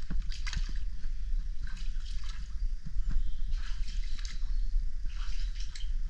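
Water sloshing and splashing around bare feet wading in a shallow rocky stream pool, in short bursts every second or so, over a steady low rumble.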